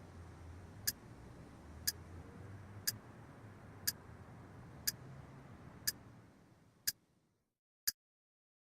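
Alarm clock ticking steadily, one sharp tick a second. A faint low hum sits under the first few seconds and fades out about seven seconds in.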